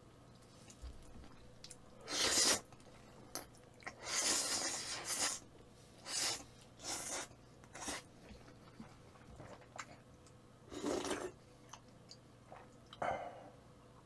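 Wide knife-cut noodles in black bean sauce being slurped in a series of short noisy bursts, the longest about a second, with quieter chewing in between.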